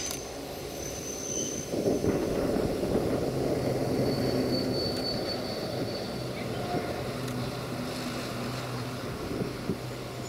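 A steady low motor hum over a rushing, rumbling noise that swells about two seconds in.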